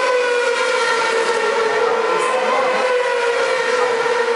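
600cc supersport racing motorcycle's inline-four engine at high revs, a steady high whine that slowly falls in pitch as the bike passes and draws away.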